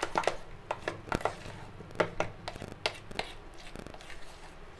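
Metal spoon beating thick wheat-flour and jaggery batter in a steel bowl: an uneven run of clicks and knocks as the spoon strikes the bowl's side, about two or three a second.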